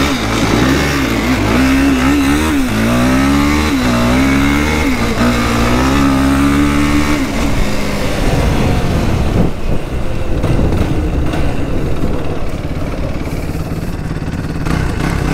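An ATV engine is revved repeatedly while riding, its pitch rising and falling for about seven seconds. Then the engine note drops back and a rough rushing noise takes over.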